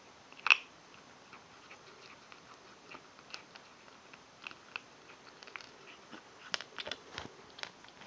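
Kitten chewing dry kibble: scattered sharp crunches and clicks, one louder crack about half a second in and a quick run of them near the end.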